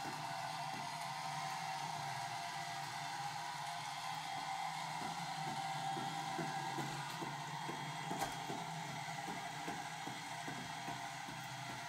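Small robot car's electric gear motors running with a steady whir as it drives, with a light, regular ticking from about five seconds in and one sharper click a little after eight seconds.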